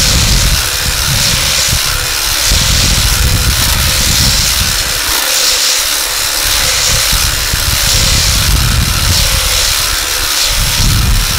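Makita cordless hedge trimmer running with its blades cutting through a leafy hedge: a steady, high hissing buzz.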